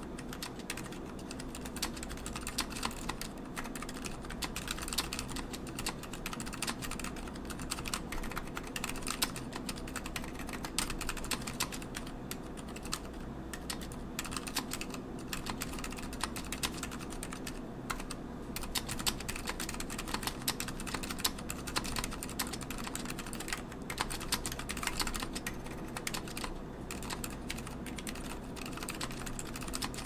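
Duck Viper V2 mechanical keyboard with a stainless steel plate being typed on continuously, a dense, steady run of keystroke clacks.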